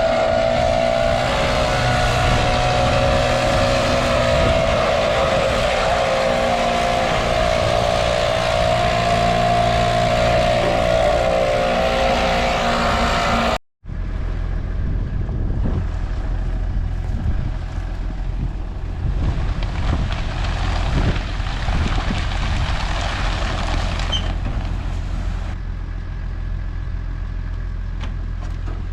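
Leaf blower running steadily with a loud whine and rushing air, used to blow dust off combines and tractors. About halfway through, it cuts off abruptly, replaced by the steady low rumble of a large engine running.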